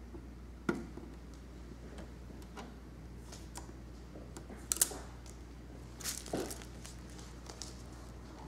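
Protective plastic film being pulled off a desktop computer case: scattered crinkles and light handling taps, the sharpest about five seconds in, over a steady low hum.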